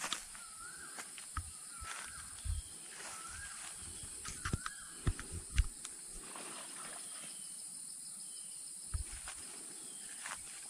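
Steady high-pitched drone of insects in the undergrowth, with a few short warbling bird calls in the first few seconds. Scattered footsteps and handling knocks run through it, the loudest about five seconds in.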